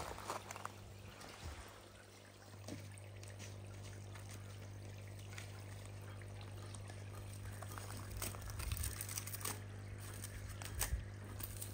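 Pond water trickling and bubbling from the aeration and filtration, over a steady low hum. Near the end, a dog lapping water at the pond's edge adds irregular splashy clicks.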